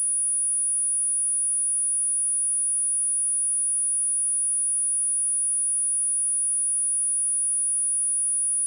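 A steady, high-pitched pure sine-wave test tone at 9752 Hz, held at one pitch and one level throughout.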